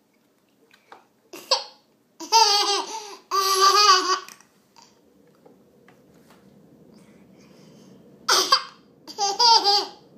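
Baby laughing and squealing in high-pitched bursts: two long ones a couple of seconds in, and two shorter ones near the end.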